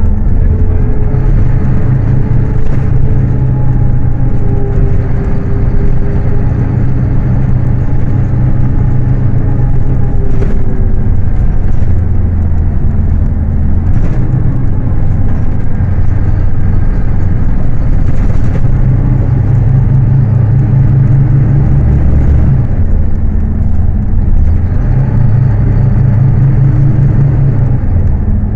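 Scania K310UA city bus engine, a 9-litre five-cylinder diesel, running under way, heard from on board. Its deep note shifts up and down in steps several times as the bus changes speed.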